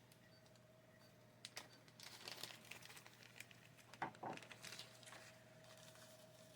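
Near silence with a few faint clicks and rustles as small laptop parts and screws are handled, over a faint steady hum.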